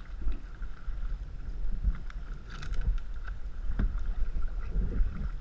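Canoe being paddled through water: uneven swells of paddle and water noise over a steady low rumble, with a couple of sharp knocks near the middle.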